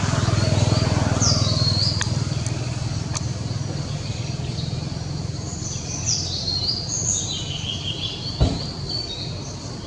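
Birds chirping: short, high calls, many sliding downward, repeated throughout over a low rumble that is strongest in the first few seconds. A single thump sounds near the end.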